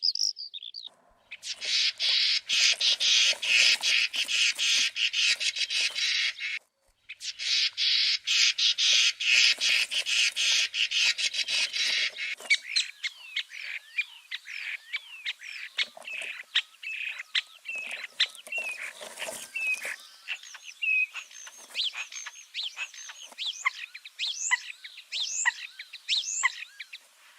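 Woodland songbirds singing: two long stretches of a fast, dense trill, each about five seconds with a short break between, then a mix of separate chirps and whistles from several birds.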